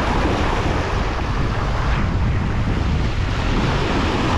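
Strong, gusty wind buffeting the microphone over rough surf washing against the jetty rocks.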